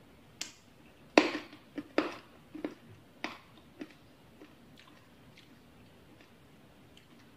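Close-miked chewing of crunchy pilus, the fried flour-ball snack topping a bowl of bakso aci soup: a run of sharp crunches, loudest about a second in, thinning to faint ticks over the last few seconds.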